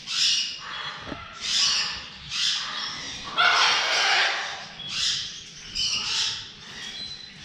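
Parrots squawking: a run of about eight harsh calls, the longest lasting about a second around three and a half seconds in.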